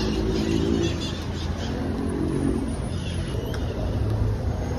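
Street traffic heard from a moving bicycle: car engines running as cars pass and pull ahead, over a steady low rumble.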